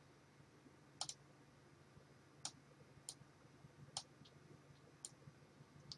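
Faint, sharp clicks of a computer mouse, about seven at irregular intervals, some in quick pairs, over a faint steady low hum.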